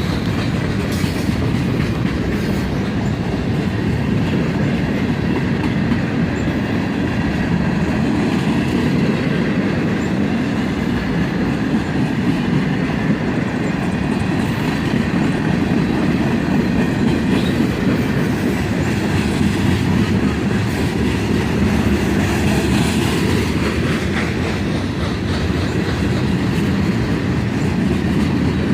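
Freight cars of a CSX manifest train rolling past and gathering speed: a steady rumble and clatter of steel wheels on rail with no pause.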